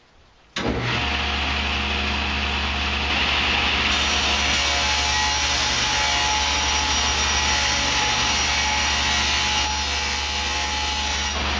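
Cabinet table saw running. It comes in suddenly about half a second in and rips through a wooden panel, the cut adding a louder, brighter hiss from about 4 s until near 10 s.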